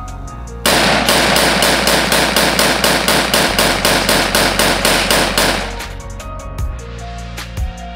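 AR-15 rifle in 5.56 mm fired in rapid semi-automatic succession, about five shots a second, starting about a second in and stopping after some five seconds. Background music with a beat runs underneath and carries on after the shots stop.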